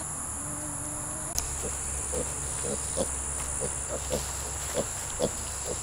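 Kune Kune pigs grunting softly in short, separate grunts, about two a second, over a steady high-pitched drone of summer insects.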